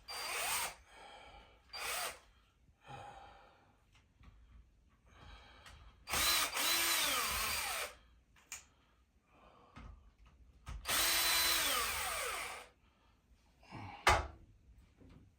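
Power drill-driver running in several bursts, two of them about two seconds long, its whine falling away as each run winds down; it is backing out screws. A sharp knock near the end.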